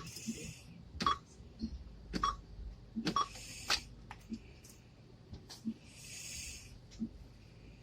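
Checkout counter sounds at a store register: a string of short sharp clicks and knocks about once a second, then lighter taps, with a brief rustle about six seconds in.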